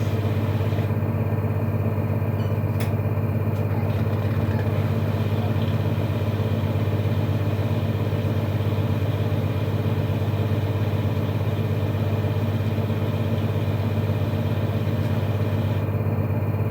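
LG F-12U2HCS2 front-loading washing machine on its spin cycle: a steady, loud hum with a fast, continuous knocking rattle from the spinning drum.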